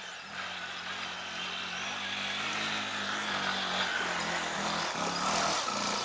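Off-road motorcycle engine working up a steep dirt slope, growing louder as it comes closer, its pitch rising and dipping with the throttle.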